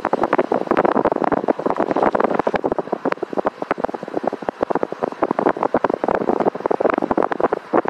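Wind buffeting the microphone of a camera moving past at vehicle speed: a loud rush broken by dense, irregular crackling pops.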